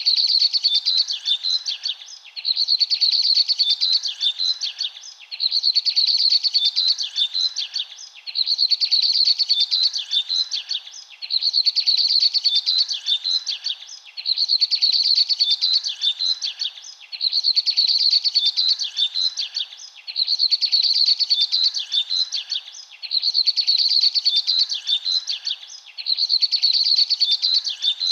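Small birds chirping and twittering in bursts of about two seconds with short gaps, each burst repeating about every two and a half seconds, so evenly that it sounds like a looped recording.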